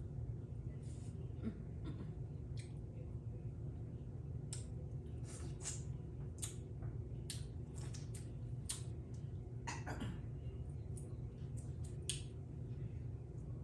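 Eating snow crab legs up close: irregular sharp snaps and wet clicks from cracking shells and chewing, a dozen or so spread through, over a steady low hum.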